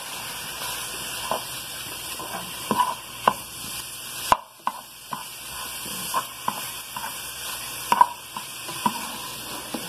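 Ground pork sausage sizzling as it browns in a frying pan on high heat, with a utensil scraping and tapping the pan every second or so as the meat is broken into small pieces.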